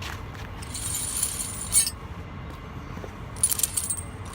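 Steel truck tire chain jangling and clinking as it is handled and stretched out on the ground, in two spells, over a steady low rumble.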